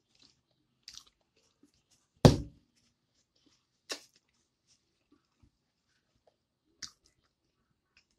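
Chewing and mouth smacks from a mouthful of food: a few short, sharp smacks spread out over several seconds, with one much louder thump about two seconds in.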